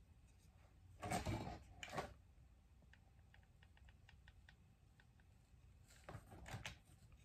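Hands handling a hot glue gun and a wooden spoon: two short bursts of rustling and knocking, about a second in and near the end, with a quick run of faint light clicks in between.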